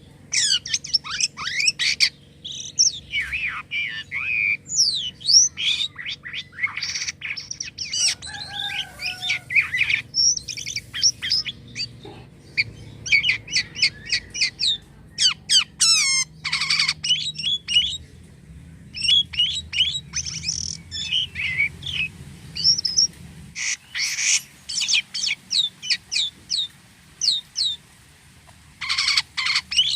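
Jalak kapas starling singing busily: a fast, varied run of chirps, whistled glides and harsh notes with short pauses between phrases.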